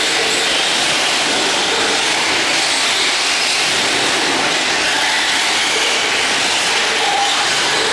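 Radio-controlled racing trucks running on the track: a steady, continuous mix of motor and tyre noise with no breaks.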